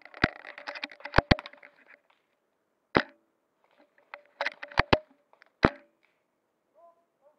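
Airsoft gunfire: single sharp cracks at irregular intervals, with stretches of rapid clicking in the first two seconds and again around five seconds in.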